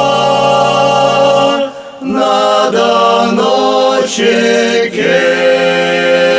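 Russian folk ensemble singing a cappella on drawn-out vowels: a long held chord, a brief break about two seconds in, a few shorter moving notes, then another long held chord.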